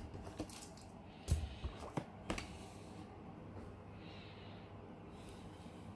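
A few light clicks and knocks, from the cordless screwdriver set being handled, a little over a second in and again about two seconds in. After that there is only quiet room tone.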